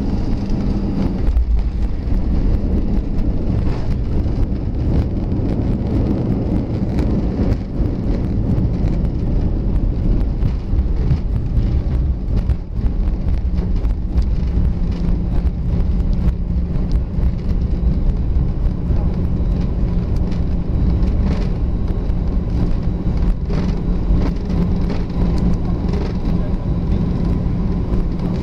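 Cabin noise inside an Airbus A320 rolling on the ground after landing: a steady low rumble of the engines and the wheels on the tarmac, with a steady hum that grows a little stronger about halfway through. Small clicks and knocks from the cabin and landing gear are scattered throughout.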